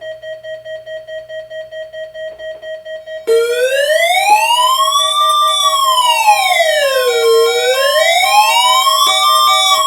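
Electronic alert audio: a rapidly pulsing beep, about four beeps a second, joined about three seconds in by a much louder electronic siren wailing slowly up and down, about one rise and fall every four seconds, with the beeping going on underneath.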